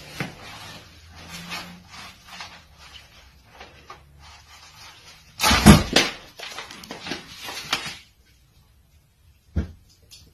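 Rustling as a padded envelope works through a door letterbox, then a loud clatter about halfway through as it drops to the floor and the metal letterbox flap snaps shut. A single soft thump follows near the end.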